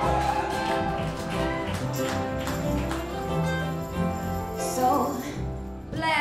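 Live band music with acoustic guitar: an instrumental passage of the song with no singing, dipping briefly just before the end.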